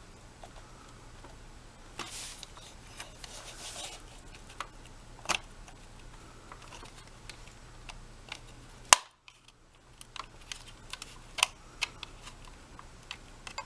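Scattered small clicks and scrapes of a screwdriver working on the plastic switch housing of a Hoover Air Steerable vacuum, with one sharp click about nine seconds in, over a faint steady low hum.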